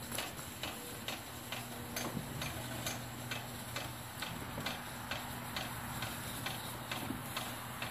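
Garage door opener, mounted sideways, pulling two wooden sliding barn doors shut: a steady motor hum with an even clicking about three times a second. The owner hasn't traced the click but doesn't take it for a fault, and thinks it may be inherent in the design.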